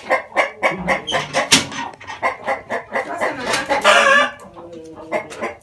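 Domestic chickens clucking in a fast run of short calls, several a second, with one louder, longer call about four seconds in.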